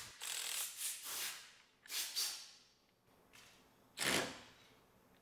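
RIDGID R866011 18V brushless cordless ratchet run on the trigger against a torque-test rig, in three faint bursts: a long first one of about a second and a half, a short one about two seconds in, and a brief one about four seconds in.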